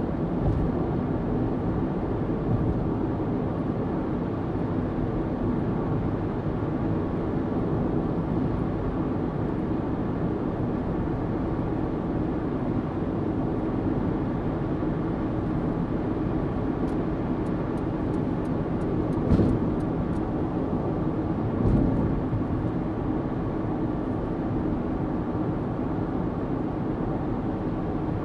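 Steady road noise inside a car cruising on a motorway at about 60 mph: a constant low tyre rumble with a faint engine hum. Two brief louder thumps come about two-thirds of the way through.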